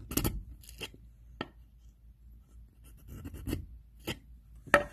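Wood chisel pushed down through a thin fruit-tree scion in a wooden jig, slicing the slant cut for a whip-and-tongue graft: a series of short, sharp cracks with some scraping of the steel blade against wood.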